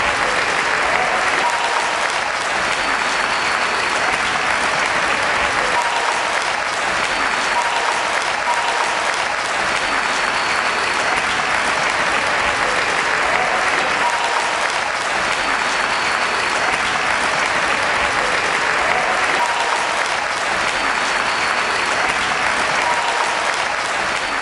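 Audience applauding, long and steady.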